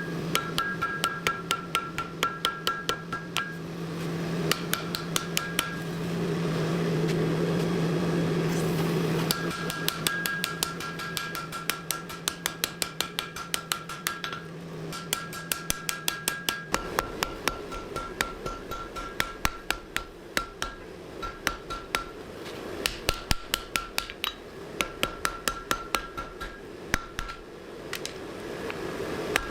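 Hand hammer striking hot steel on an anvil in steady runs of about two to three blows a second, forging a knife blade. Near the start the blows stop for a few seconds and then resume. A steady hum runs underneath.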